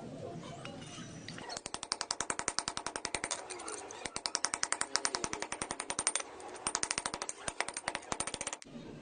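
Rapid, even clicking at about ten clicks a second, in three runs with short breaks between them, ending abruptly.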